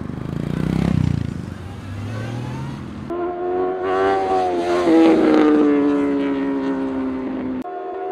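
Sportbike engines running and revving, swelling briefly about a second in. Then, after a cut, one sportbike engine is held at high revs through a wheelie: a steady high whine that slowly drops in pitch and cuts off suddenly near the end.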